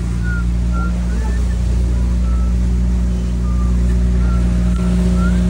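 Boat engine running steadily under way, a loud, even low drone.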